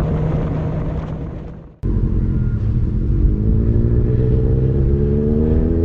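Kawasaki ZX6R 636 inline-four engine running at a steady note, cut off abruptly about two seconds in, then pulling with its pitch rising steadily as the bike accelerates.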